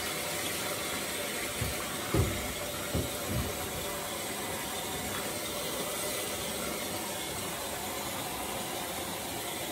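Bathtub faucet running, its stream pouring into the partly filled tub with a steady hiss of splashing water. A few dull low thumps come about two to three seconds in.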